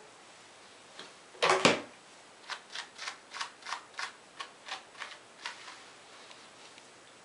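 A hairbrush being drawn through the hair of a wig: about a dozen quick, even brushing strokes, roughly four a second, after two sharp handling knocks about a second and a half in.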